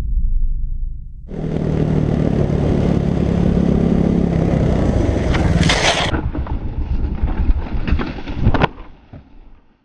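Husqvarna TE610 single-cylinder four-stroke running under heavy wind rush on a helmet camera. Near the end come a series of sharp knocks and scrapes as the bike runs off the dike road into the grass and crashes, then the sound falls away.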